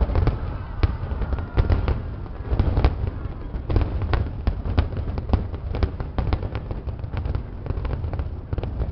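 Aerial fireworks bursting overhead: rapid, irregular crackling pops and bangs, several a second, over a low rumble.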